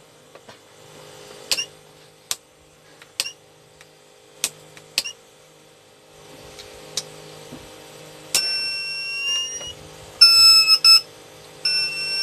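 TBE 1200 W pure sine wave inverter's alarm buzzer. A few short chirps come first, then about eight seconds in a steady high beep that breaks into rapid beeping near the end. It is the inverter's warning of a low battery.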